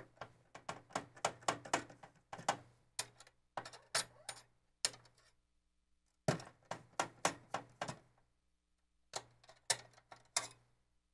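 Expansion slot covers being taken off the back of a Fractal Define S PC case: a long run of sharp clicks and clinks in irregular clusters, with short pauses between them.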